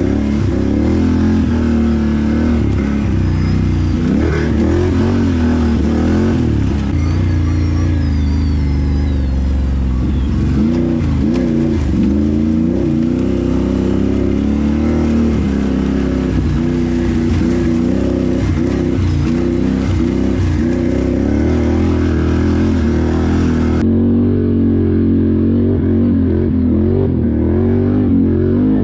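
Can-Am Renegade XMR 1000R ATV's V-twin engine running hard, its pitch rising and falling again and again as the throttle is worked.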